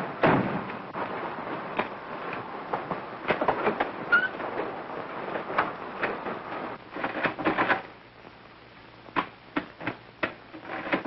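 City street noise with a car running, dotted with clicks and knocks. About eight seconds in, it drops to a quieter room where a few sharp knocks sound.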